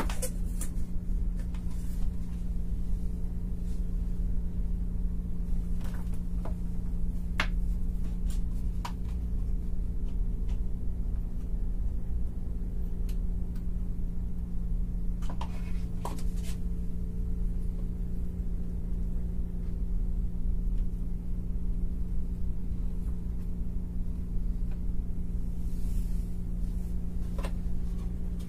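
A loudspeaker driven by a home-built OCL 150-watt power amplifier gives out a steady low-pitched drone over a deep rumble while the amp is tested, with a few faint clicks.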